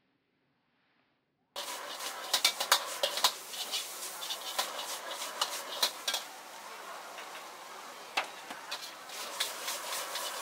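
Near silence for about a second and a half, then a metal spatula and ladle scraping and clanking against a wok as noodles are stir-fried, over a steady hiss. The clanking thins out for a few seconds in the middle and picks up again near the end.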